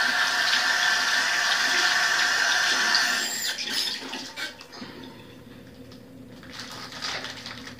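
Bathroom sink tap running as hands are wetted under it, shut off about three and a half seconds in, followed by quieter, intermittent wet handling sounds as the hands work up a lather on the bar soap.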